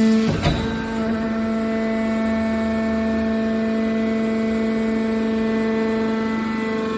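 Hydraulic metal baler's power unit running with a steady, even-pitched hum, and one sharp knock about half a second in.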